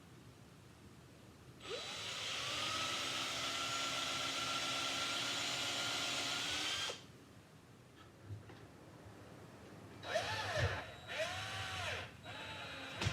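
An electric drill spins up and runs steadily for about five seconds, then stops. Near the end it is triggered again in a few short bursts, each rising and falling in pitch, with a few knocks in between.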